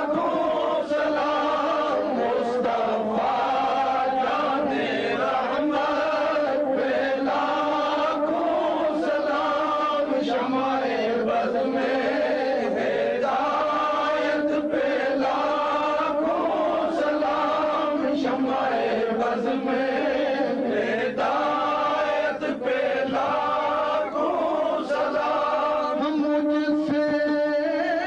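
Male voices chanting a sustained, melodic Sufi devotional chant, the sung lines held and gliding without a break.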